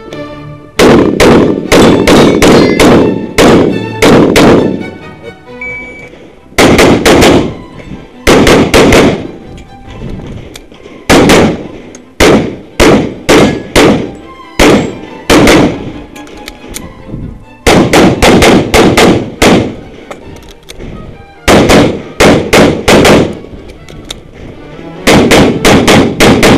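Rapid pistol shots fired in strings of two to about eight, with short pauses between strings as the shooter moves between positions.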